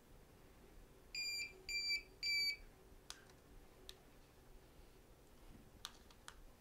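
Three short electronic beeps in quick succession from the Solax Transformer folding mobility scooter's electronics, followed by a few faint clicks.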